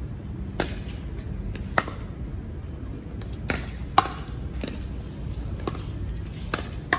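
Pickleball rally: paddles hitting the plastic ball back and forth, a string of sharp pocks about one every half second to second. The loudest hits come about two and four seconds in.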